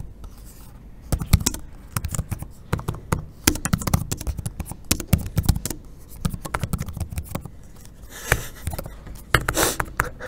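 Typing on the HP Elite Folio's keyboard close to the microphone: fast runs of key clicks and taps with brief pauses between them.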